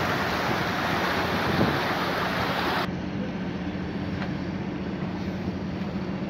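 Sea water rushing and splashing along a ship's hull, with wind buffeting the microphone. About three seconds in it cuts off abruptly to the quieter, steady low drone of the ship's engine.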